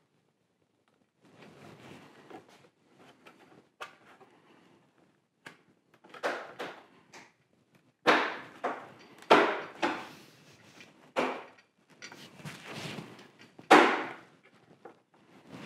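Plastic parts and their clips being pressed by hand into a plastic car front bumper cover: a run of knocks and snaps with handling rustle between them, the loudest coming in quick succession in the second half.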